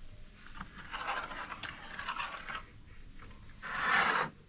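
Scraping and scratching on a sheet of plywood as a long straightedge is worked across the board to mark a cut line, in two spells, the second shorter and louder near the end.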